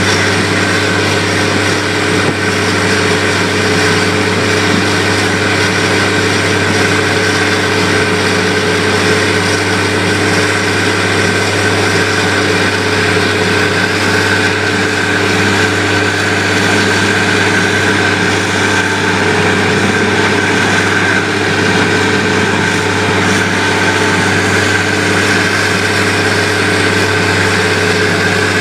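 Heavy machinery running with a steady drone that stays the same throughout, as a wheel loader and corn-cob grinding equipment work.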